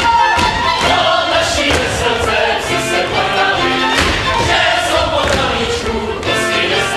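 Folk dancers singing together as they dance, over fiddle music, with the thuds of stamping feet on the stage.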